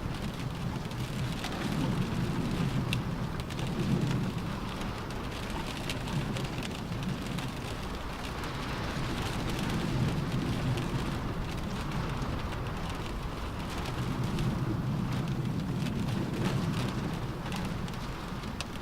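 Rain falling on a car roof: a steady hiss with scattered sharp drop ticks, under low swells that rise and fall every few seconds.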